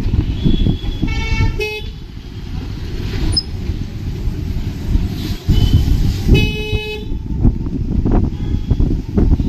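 Vehicle horns honking in road traffic: two longer horn blasts, about a second in and again about six seconds in, with shorter high beeps between, over a steady low rumble.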